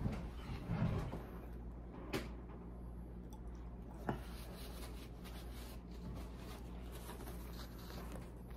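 Household handling and movement noises as a person gets up from a kitchen table: low bumps in the first second, then two sharp knocks about two and four seconds in, over a steady low hum.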